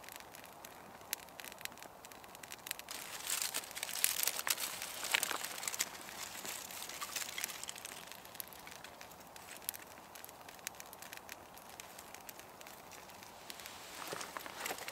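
A handful of thin dry twig kindling rustling and crackling as it is handled and laid over a small fire that has just caught; busiest a few seconds in.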